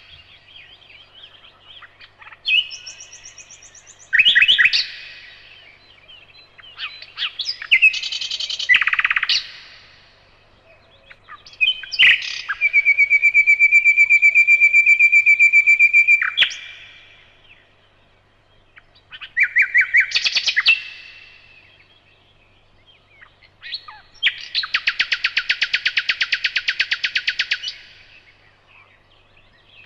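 Nightingale singing in separate phrases a second or two apart, mixing quick trills and clicks. About halfway through it holds one long, steady whistle, and near the end it sings a fast run of evenly repeated notes.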